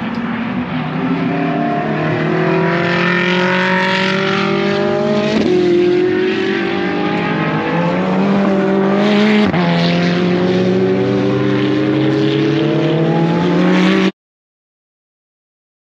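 Ferrari 488 Challenge EVO race cars' twin-turbo V8 engines accelerating hard, several at once. Their pitch climbs through the gears with two sharp upshift drops about four seconds apart. The sound cuts off suddenly near the end.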